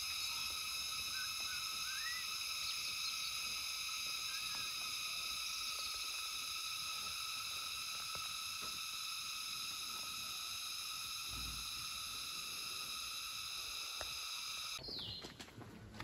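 Steady, high-pitched insect chorus of several layered pitches, with a few short bird chirps early on; it cuts off suddenly near the end.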